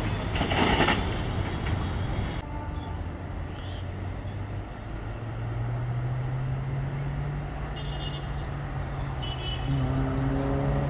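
Rumble of a departing train's coaches on the rails, cut short after about two seconds. Then the diesel engine of a DEMU multiple unit accelerating away from the platform, its low note rising in pitch and then holding, with the train horn starting to sound near the end.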